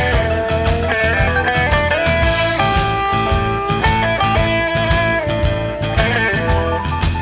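Modern electric Texas blues band playing an instrumental stretch: a lead electric guitar plays held and bent notes over bass and a steady drum beat.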